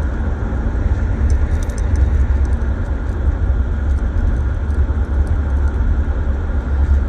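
Steady low rumble of engine and road noise inside a moving car, with scattered faint light clicks or jingles over it.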